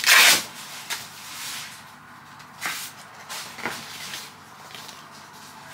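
Paper rustling as a greeting card is handled: a sharp swish at the start, then two softer rustles about two and a half and three and a half seconds in.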